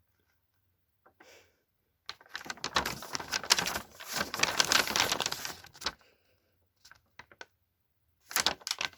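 Rustling and crackling of paper and packaging being handled, lasting about four seconds from about two seconds in, followed by a few light taps.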